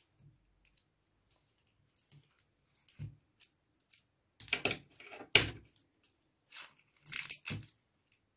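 Scissors cutting through clear sticky tape: a few short, sharp snips, the loudest about five and a half seconds in and another cluster near the end.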